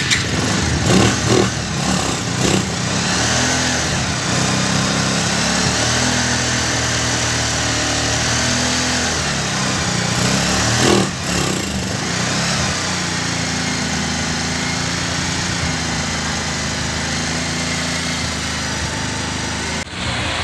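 Small single-cylinder motorcycle engine running on a makeshift bottle fuel feed. It revs briefly in the first few seconds and again about eleven seconds in, then idles. Its speed rises and falls, which the mechanic puts down to a faulty ignition coil.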